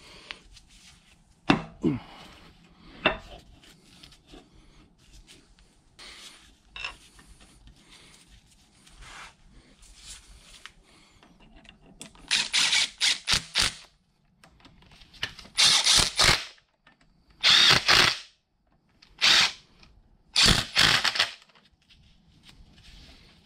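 Two metal knocks as a milling-machine table's bearing bracket is set in place, about one and a half and three seconds in. From about halfway, a hex-bit driver runs in five short bursts, driving home the bracket's four socket head cap screws.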